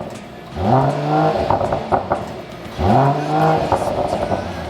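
Mercedes-AMG GLE53's turbocharged inline-six, straight-piped through the mid-section and muffler, blipped twice about two seconds apart. Each rev rises quickly, holds briefly and falls back, followed by a run of popping and crackling on the overrun ("popcorn" exhaust). A third rev starts at the very end.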